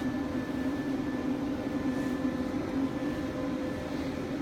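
Steady machine hum: a constant low drone with a few fainter, higher steady tones over it, from the running flex cable bonding equipment.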